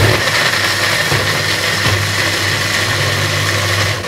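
Single-serve bullet-style blender running steadily, its motor humming as the blades grind coconut, onion, tomato, garlic and soaked dried red chillies with water into a wet curry paste. It is loudest at the start and eases slightly near the end as the mix turns smooth.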